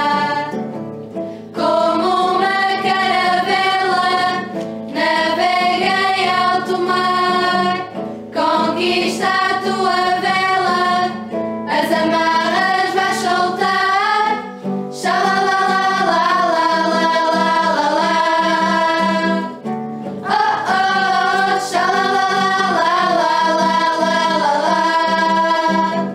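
Camp hymn sung in Portuguese by female voices over a steady instrumental backing, in sung phrases of a few seconds with short breaks between them.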